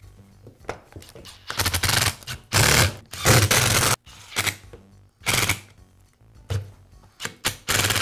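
Power screwdriver driving the screws that hold the plastic handle housing of a reciprocating saw, in a series of short, loud bursts. The longest and loudest bursts come near the middle.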